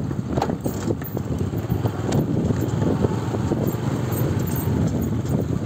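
Wind buffeting the microphone while moving through open air: a loud, rough, uneven rumble with irregular knocks.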